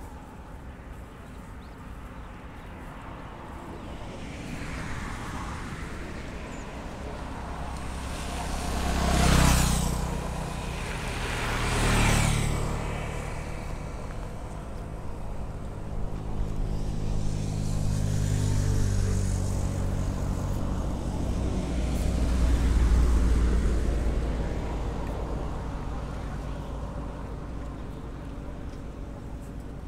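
Motor vehicles passing close by on a road. Two go by in quick succession, each swelling and falling in pitch as it passes. A lower engine then grows louder and fades away in the second half.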